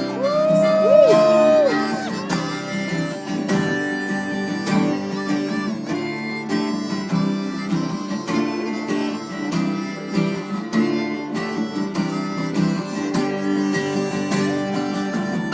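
Acoustic guitar strummed steadily under an instrumental solo. The melody line opens on a long held note that bends in pitch, then carries on over the chords.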